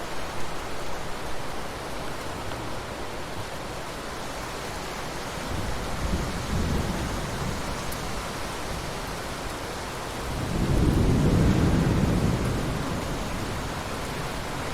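Steady rain falling in a forest, with low rumbles of thunder: a short one about six seconds in and a louder one of about two seconds later on.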